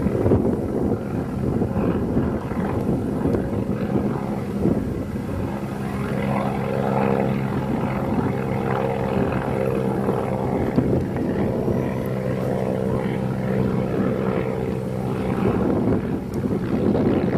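Propeller plane with a 230-horsepower engine flying overhead: a steady engine-and-propeller drone, its pitch rising and falling slightly.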